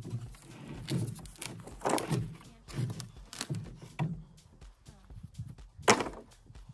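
A person straining to flip and push a heavy cement block, with grunts of effort and knocks and scrapes from the block. The sounds come roughly once a second, and the sharpest knock comes about six seconds in.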